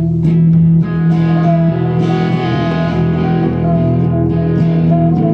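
Band music with guitar, an instrumental passage between sung lines: guitar over a steady bass line.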